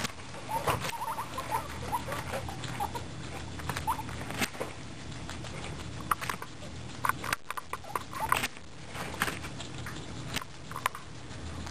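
Two guinea pigs gnawing a whole raw carrot: irregular crisp crunches and clicks of teeth on carrot. A few short high squeaks come in the first few seconds.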